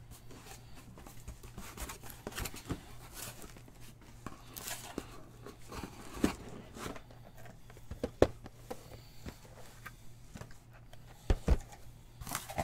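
Trading-card boxes being handled on a table: scattered taps, knocks and light rustles, with a sharp pair of knocks near the end, over a low steady hum.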